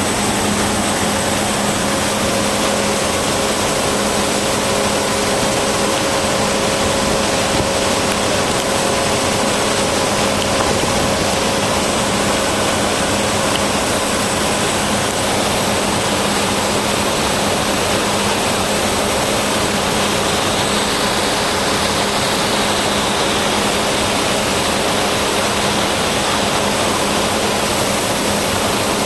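Cessna Grand Caravan's Pratt & Whitney PT6A turboprop engine and propeller running steadily in descent, heard inside the cockpit as a loud, unchanging drone with a steady hum under rushing air noise.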